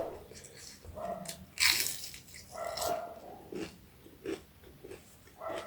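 Close-miked eating: biting into and chewing crispy fried small rohu fish, several separate crunchy bites with short mouth sounds between them, the loudest crunch about two seconds in.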